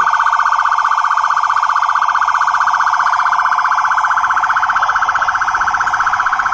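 Police siren sounding loudly as a fast, rapid pulsing at one steady pitch.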